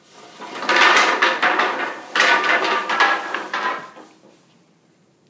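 Wooden bed slats, linked by a white strip, clattering against each other and the wooden foundation frame as the bundle is spread out across it. Two runs of rapid wooden clacks, each about a second and a half long, which stop about four seconds in.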